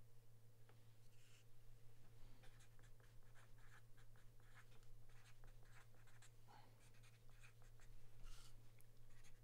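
Faint, irregular scratching strokes of a pen writing on paper, over a steady low electrical hum.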